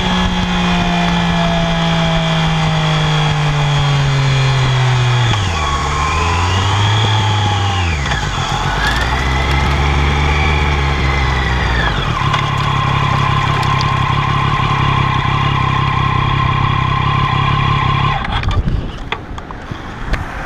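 Triumph Daytona 675R's 675 cc inline-three engine running at high rpm through its stock exhaust. The revs sag slowly at first, dip and climb back twice, then hold steady before the engine sound drops away suddenly near the end.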